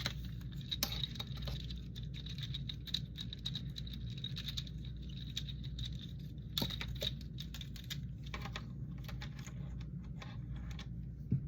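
Fidget toys being clicked and tapped close to the microphone: a dense run of rapid light clicks, with a slightly louder click about halfway through and another near the end, over a steady low hum.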